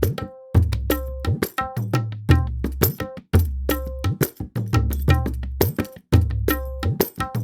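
Sampled Indian hand drums from Native Instruments' Discovery Series India library playing a repeating rhythmic pattern: deep bass strokes that hang on, mixed with quick, sharp strokes that ring with a short pitched tone.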